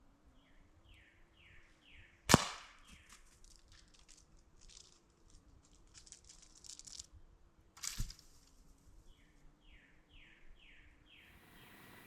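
An air rifle fires once about two seconds in with a sharp crack, followed by a few seconds of scattered ticking and rustling and a second, weaker crack about eight seconds in. A bird calls a quick run of short falling notes near the start and again near the end.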